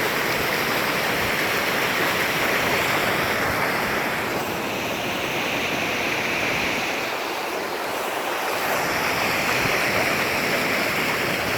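Waterfall pouring heavily, swollen after torrential rain: a steady, loud rush of falling water.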